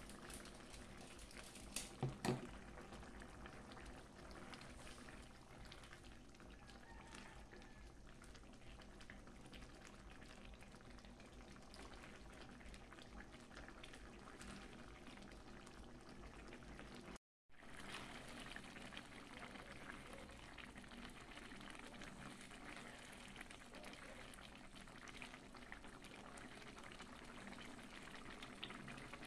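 Pot of soup boiling faintly, a steady bubbling hiss. A few quick knocks about two seconds in, and a brief break in the sound a little past the middle.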